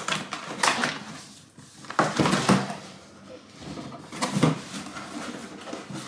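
Cardboard packaging being handled: the outer box of a robot vacuum is slid up off its inner box and set down, with scraping and rustling and a few louder knocks.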